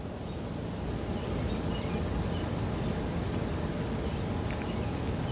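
Outdoor background: a steady low rumble with no siren tone, and a high, rapid trill lasting about three seconds from about a second in.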